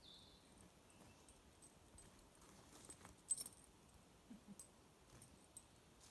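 Faint metallic jingling and clicking, with one sharper clink about three seconds in, over a quiet background.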